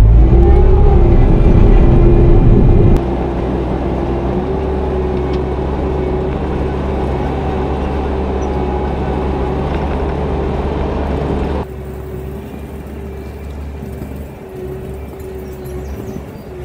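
Bobcat T650 compact track loader's diesel engine running steadily under a load of rip rap stone, with a steady whine above the engine hum. The level drops abruptly about three seconds in and again after about twelve seconds.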